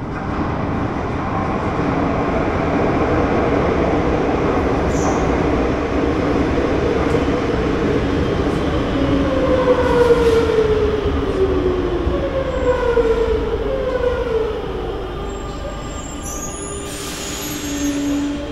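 Madrid Metro train pulling into an underground station: its rumble builds, then several falling whines as it slows to a stop. A short hiss comes near the end.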